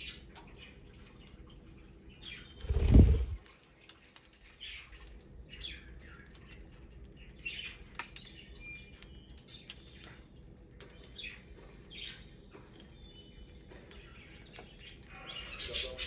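Budgerigars feeding, with scattered short high chirps and light clicks from their beaks in the seed. About three seconds in there is one brief, loud, low whoosh of wingbeats.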